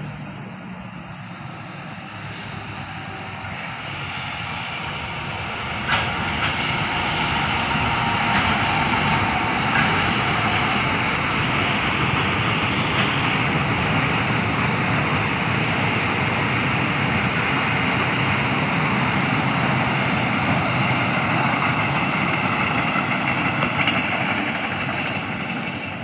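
Freight train hauled by a CSR SDA4 diesel locomotive passing close by: a steady rumble and clatter of wagon wheels on the rails that builds over the first few seconds as the train nears, holds level while container flatcars and tank wagons roll past, and fades near the end. There is a sharp knock about six seconds in.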